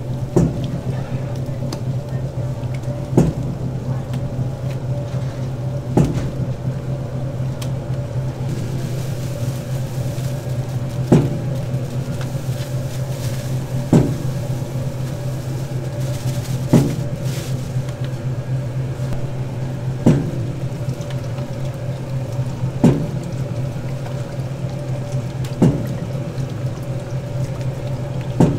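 Electric meat mixer running with a steady motor hum, and a knock about every three seconds as its paddle turns through the ground pork filling.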